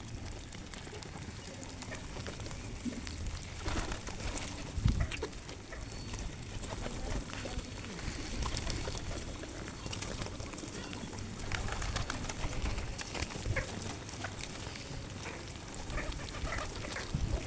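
Pigeons cooing, with scattered small clicks and taps throughout.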